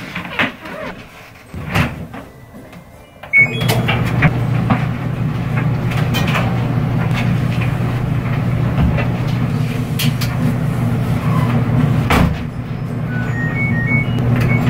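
A few knocks, then a stacked front-load clothes dryer starts about three seconds in with a beep and runs with a steady, loud motor-and-drum hum. A few short electronic beeps from the washing machine's control panel come near the end.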